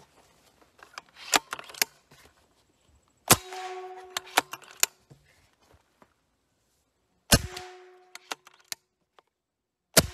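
Benjamin Bulldog .357 big-bore PCP air rifle fired three times, each sharp crack followed by a metallic ping ringing on for about a second. This ping is the annoying pinging noise of the gun with no depinger fitted. Small clicks of the rifle being handled come between the shots.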